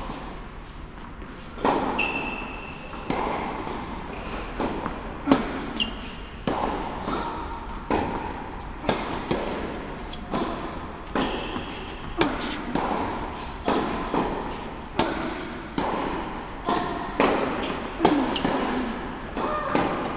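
Tennis rally on an indoor court: sharp racket hits and ball bounces about once a second, starting about two seconds in, each ringing out in the large hall.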